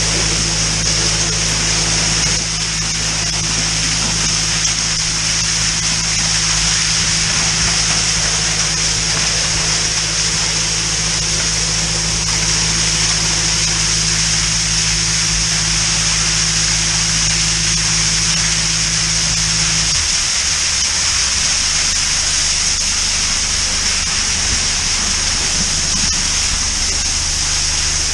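High-pressure drain jetter working a blocked drain: a steady loud hiss of water jetting and rushing in the manhole over the hum of the jetting unit's engine, whose low note shifts about two-thirds of the way through.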